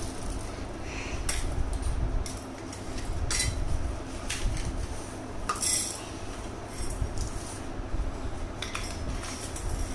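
Small stainless steel cups and a steel tray clinking and knocking as they are handled in a tray of dyed rice, with a handful of scattered metallic clinks at irregular intervals.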